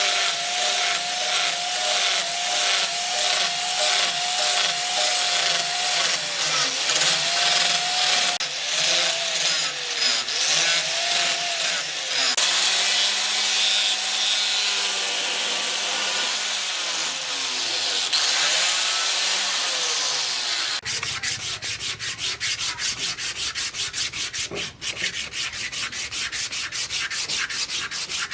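A power tool grinding and sanding a steel axe head, its motor pitch dipping and recovering as the steel is pressed to it. About two thirds of the way through, the sound changes to a fast, even rasping.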